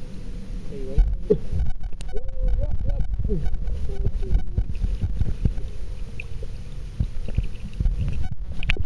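Muffled underwater sound picked up by a waterproof camera submerged in a river: a low rumble of moving water with frequent dull knocks and thumps.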